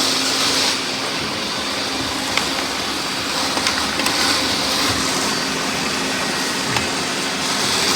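Several robot vacuums running together: a steady whirr of motors and brushes, with a few faint clicks.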